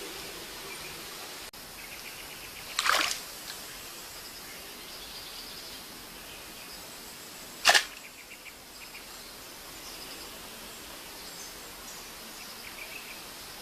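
A bamboo stick jabbing twice into a shallow, rocky streambed, sharp and brief, about three seconds in and again near eight seconds, over the steady wash of the stream with faint bird chirps.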